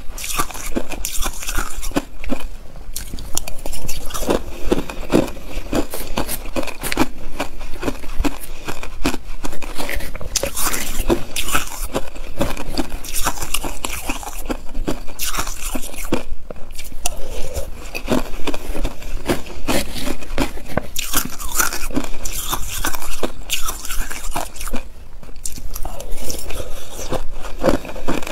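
Hard crushed ice being bitten and chewed close to the microphone: a dense, continuous run of sharp, crackly crunches, broken by a few short pauses between mouthfuls.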